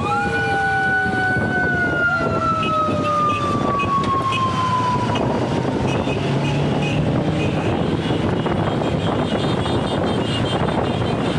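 Wind rushing over the microphone and tyre noise from a road bike riding in a fast group at about 35 km/h. A high whining tone slowly falls in pitch over the first five seconds.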